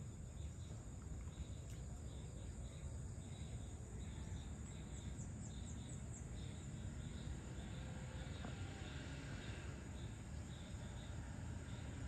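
Evening tropical insect chorus: a steady high buzz with a cricket's evenly repeated chirps over a low background rumble, and a brief run of quick high chirps about five seconds in.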